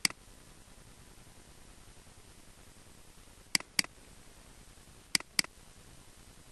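Computer mouse button clicking over faint hiss: one click right at the start, then two double-clicks, each pair about a quarter second apart, about 3.5 and 5 seconds in. The double-clicks open folders.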